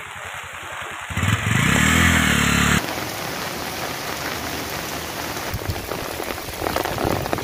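Heavy rain falling onto floodwater, a steady hiss. About a second in, a vehicle engine runs loudly for under two seconds, then cuts off suddenly.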